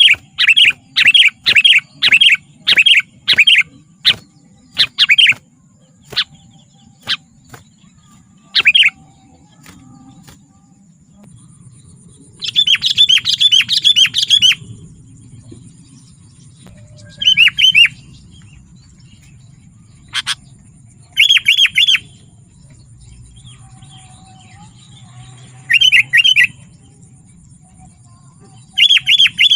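Sooty-headed bulbul calling: loud, clipped chirps at about two a second to begin with, then short bursts of rapid chirps every few seconds. A faint steady high tone runs underneath.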